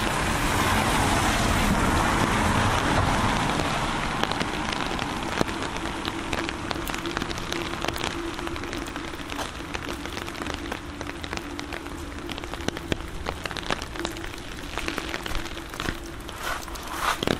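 Steady rain with many drops ticking sharply and irregularly over the hiss. The hiss swells louder in the first few seconds, then eases, and a faint steady low hum runs underneath.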